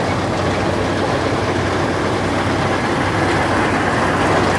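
A John Deere combine harvester running at work cutting wheat: a steady, heavy engine drone with a constant low hum.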